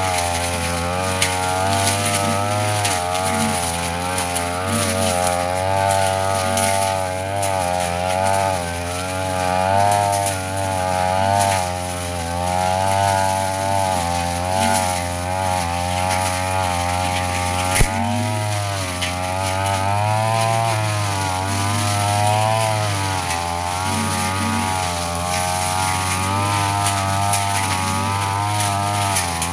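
Yasuka backpack brush cutter's engine running at working speed, its pitch wavering up and down continuously as the blade cuts through grass and weeds. A single sharp click about two-thirds of the way through.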